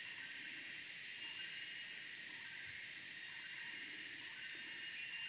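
Faint, steady hiss of a small stream's running water.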